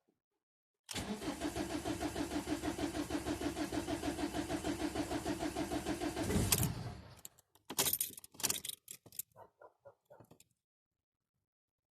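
Ford Mondeo Mk4 1.8 TDCi diesel being cranked on the starter from cold, a steady rhythmic pulsing of about seven beats a second for some five seconds. It swells briefly near the end and then dies away instead of settling into an idle: the hard cold start the owner complains of. A few sharp clicks and short dog barks follow.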